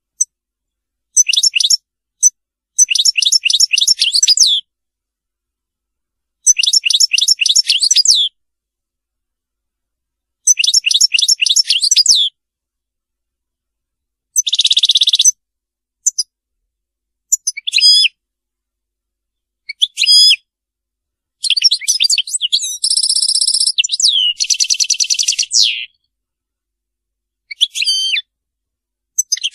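Caged finch singing: phrases of rapid, high twittering notes about two seconds long, separated by pauses, with a buzzy held note about halfway and a longer run of buzzing and twittering near the end.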